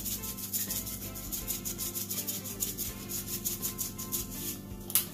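Dry seasoning granules rattling in a shaker bottle, shaken in quick repeated strokes over a pan of callaloo, with background music underneath. A single sharp knock comes near the end.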